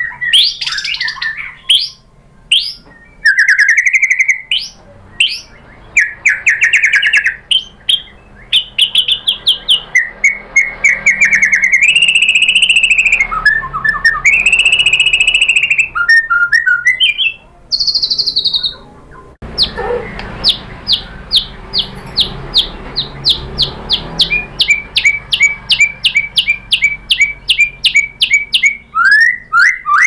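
Male white-rumped shama singing a loud, varied song: whistled slurs and quick trills, two held notes near the middle, then a long run of rapid repeated notes in the last third.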